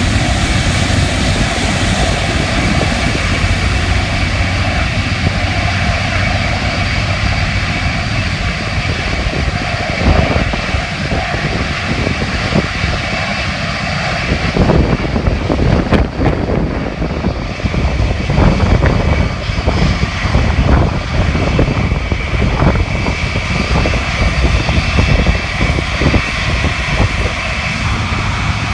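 Jet airliner engines running loud, with a steady whine over a broad roar. About halfway through the whine partly drops away and the roar turns rougher and uneven.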